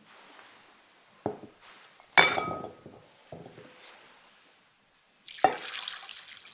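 A glass bowl knocks and clinks a few times. About five seconds in, water starts pouring from a glass measuring cup into the bowl over wheat rice cake sticks, which are being soaked to soften them.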